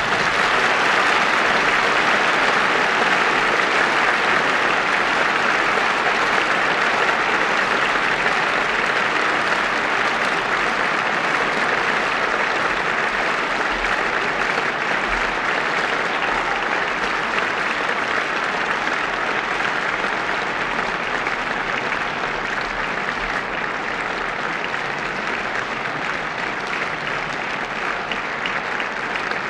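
Large theatre audience applauding steadily at the end of a ballet number, easing off slightly toward the end.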